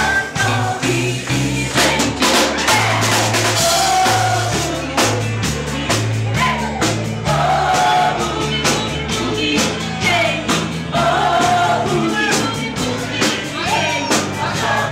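Live band playing a boogie-woogie with lead vocal, a stepping bass line and drums, in a steady, upbeat rhythm.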